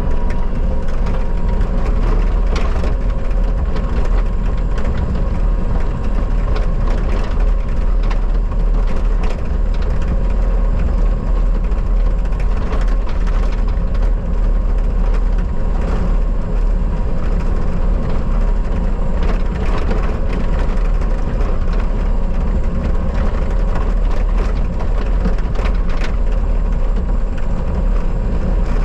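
Bobcat skid steer engine running steadily with a faint hydraulic whine, while the grapple crushes brush and old pumpkins, with many scattered cracks and snaps of wood.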